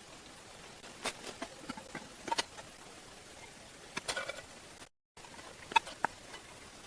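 Irregular sharp clicks and light knocks over a steady hiss, a few at a time, with a brief dropout to silence about five seconds in.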